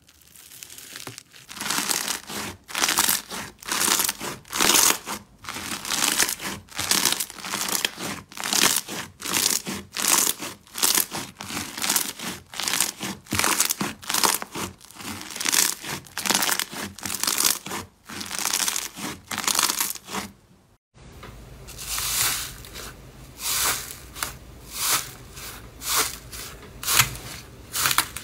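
Foam-bead slime (floam) crackling and popping as hands press and knead it, one crackle with each squeeze in a steady rhythm of about two a second. After a break about three quarters through, a blue textured slime is pressed in a tray, crunching with each press.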